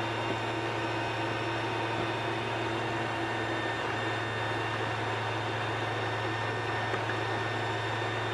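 Steady hum of Creality 3D printers' cooling fans running, with a few thin, steady whines above it.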